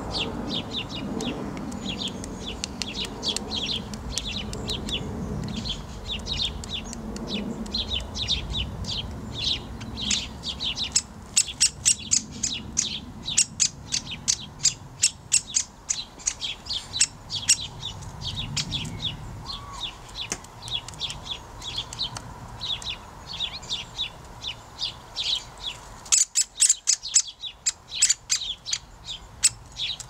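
Great spotted woodpeckers calling: a long, fast series of short sharp calls, several a second, that grows much louder about a third of the way in.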